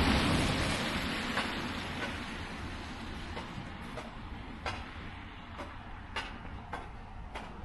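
A passing vehicle's rush that fades away over the first few seconds, followed by a series of footsteps in snow, about one and a half a second.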